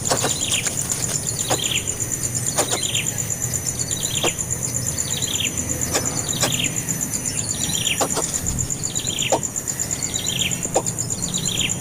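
A bird calling a short, falling chirp over and over, about once a second, over a steady high-pitched buzz.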